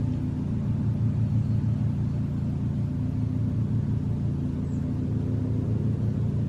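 A car engine running steadily, a low, even rumble.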